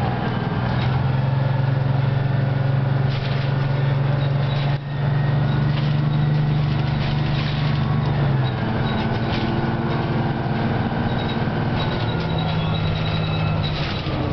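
Detroit Diesel 6V71N two-stroke V6 diesel of a 1987 GM Classic transit bus, heard from inside the cabin as the bus drives along. The engine note drops about eight seconds in and changes again near the end, and a faint falling whine runs under it in the second half.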